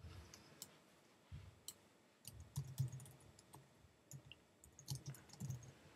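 Faint, irregular keystrokes on a computer keyboard as a short title is typed, clicks in small clusters with soft low thumps.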